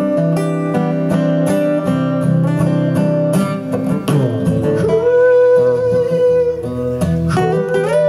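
Two acoustic guitars playing together, strummed chords under picked notes. About halfway through, a held melody note slides up in pitch, and another slides up near the end.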